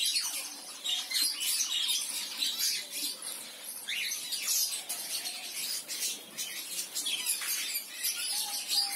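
A flock of zebra finches calling together, with many short, overlapping chirps and calls in a continuous busy chatter.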